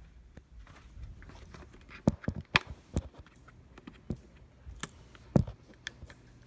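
A string of irregular sharp knocks and thumps, about eight of them from about two seconds in, spaced unevenly.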